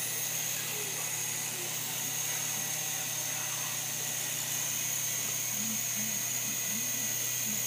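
Tiny electric RC helicopter in flight: a steady high-pitched motor whine over the hiss of its spinning rotors.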